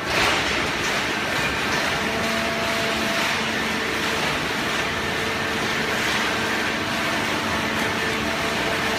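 Horizontal hydraulic baler running: a steady machine noise with a constant whine from the hydraulic power unit, rising slightly right at the start and then holding level.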